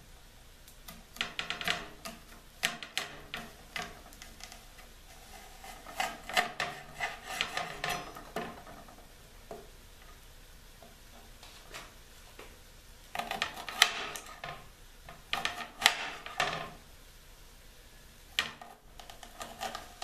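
Chef's knife slicing an onion on a glass cutting board: runs of sharp clicks and taps as the blade strikes the glass, with a quieter gap about halfway through.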